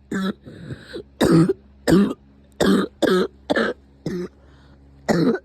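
A coughing fit: about eight short, voiced coughs in quick succession, less than a second apart.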